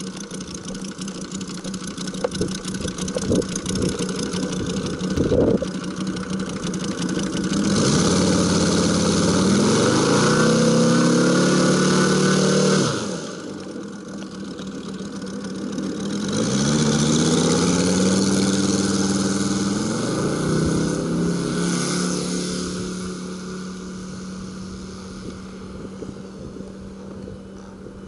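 Moki S-180 five-cylinder radial gas engine of a large RC La-7 warbird model, running steadily at low throttle, then opened up about eight seconds in with its pitch climbing. The pitch drops sharply about five seconds later, swells again about three seconds after that, then holds steady and fades as the plane flies off.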